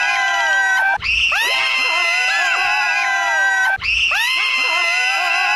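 Several high voices screaming together in one long shriek, added as a comedy sound effect. The same scream clip starts over twice, about a second in and again near the fourth second.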